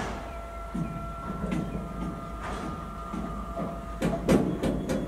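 Freight train of flat wagons loaded with concrete sleepers rolling slowly past, with a low steady rumble and a thin high squeal that stops about four seconds in. A cluster of sharp clanks and knocks from the wagons comes about four seconds in.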